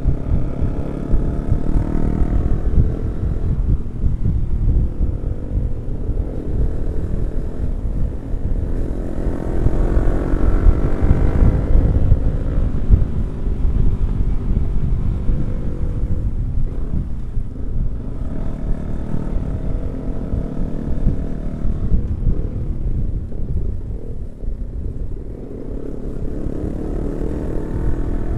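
Yamaha R15 V3 motorcycle's single-cylinder engine running while riding, its pitch rising and falling several times as the bike accelerates and changes speed. Heavy wind rumble on the microphone runs underneath.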